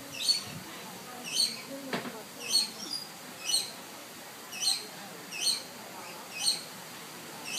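Short, high bird chirps repeated steadily about once a second, with one brief knock about two seconds in.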